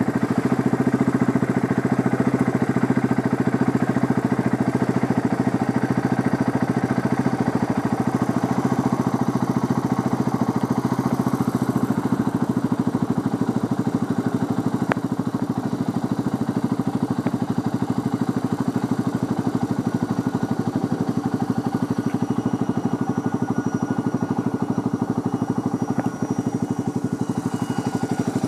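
An engine idling steadily: a low, even hum with a rapid regular beat that does not change, and a few faint clicks.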